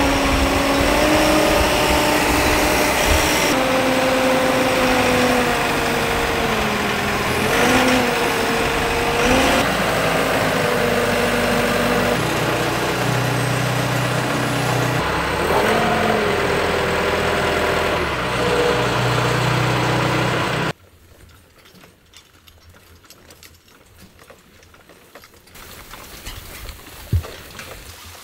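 Telehandler's diesel engine running, its pitch rising and falling with the throttle as the hydraulics work. It cuts off abruptly about two-thirds of the way through, leaving quiet outdoor sound with a single knock near the end.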